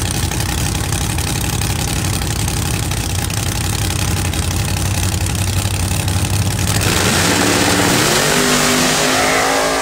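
Drag race cars' engines running loud and rough at the starting line. About seven seconds in they launch hard, and the engine note rises in pitch in steps as they accelerate down the track.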